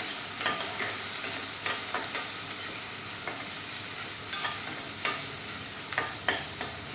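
Finely chopped onions sizzling in hot oil in a kadai, with a steady hiss, while a spatula stirs them, making irregular clicks and scrapes against the pan.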